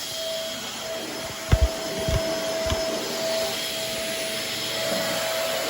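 Shark Navigator Swivel bagless upright vacuum running steadily, a motor hiss with a steady whine, with a few dull thumps about one and a half to three seconds in.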